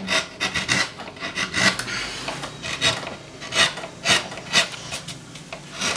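Hand carving tool cutting into a woodcut block: short scraping strokes through the wood, about two a second.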